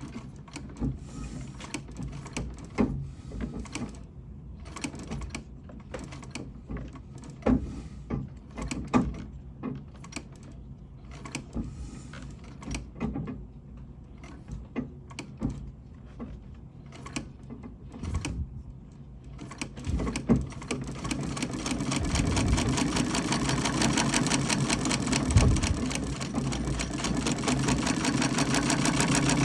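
Davis vertical feed treadle sewing machine: scattered, irregular clicks and knocks for the first twenty seconds or so, then about 21 seconds in it starts stitching steadily through denim, a fast, even mechanical clatter that grows louder.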